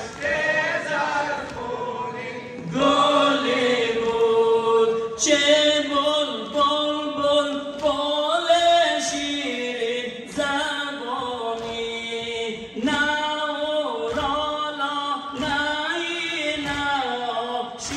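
Voices chanting a noha, a Shia Muharram mourning lament, unaccompanied in long melodic phrases with short pauses between lines.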